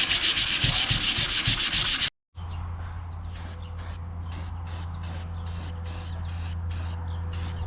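Sanding of a welded steel seat bracket, a fast, even scraping, then after a cut a run of about a dozen short hissing bursts, typical of spray-painting the bracket in quick passes, over a steady low hum.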